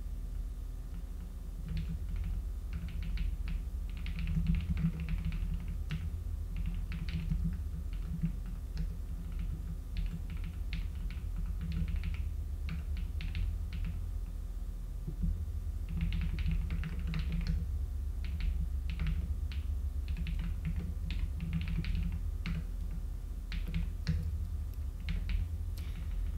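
Typing on a computer keyboard: quick runs of key clicks in bursts with short pauses, over a steady low hum.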